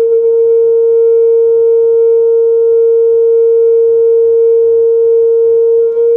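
A pair of homemade plywood speaker cabinets playing a loud, steady test tone from a laptop tone generator, one unchanging mid-range pitch.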